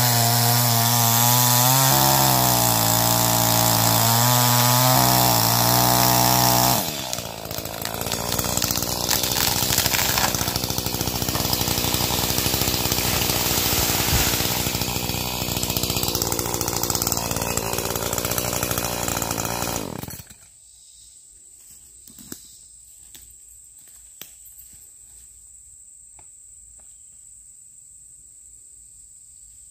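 A chainsaw running hard as it cuts a tree trunk, its pitch rising and falling with the load. About seven seconds in, the sound turns rougher and noisier. About twenty seconds in the saw stops, leaving a steady high insect drone with a few faint clicks.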